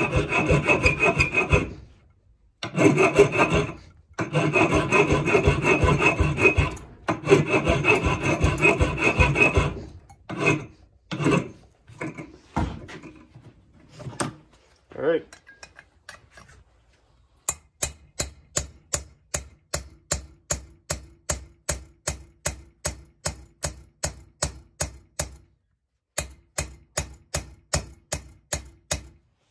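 A hammer taps steadily, about three blows a second, on a drift driving a valve guide into a Harley flathead cylinder head, with a short pause before the tapping resumes. This follows about ten seconds of continuous rasping scraping and a few scattered knocks.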